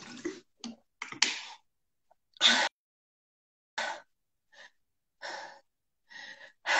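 A woman drinking from a water bottle, then breathing in short, separate gasps and exhales to catch her breath during a rest between workout sets. The sharpest gasp comes about two and a half seconds in.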